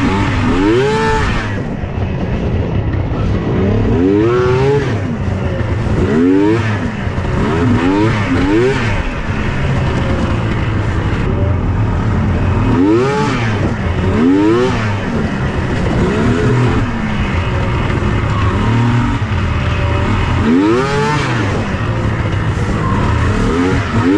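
2001 Yamaha SX700R snowmobile's three-cylinder two-stroke engine revving hard again and again, its pitch climbing under throttle and dropping back each time, over a steady low rumble.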